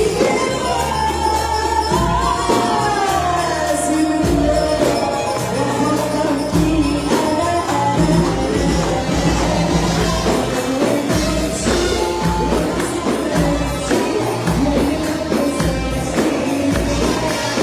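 Egyptian popular song: a woman sings a gliding, ornamented melody over a band with a steady beat, bass and jingling percussion.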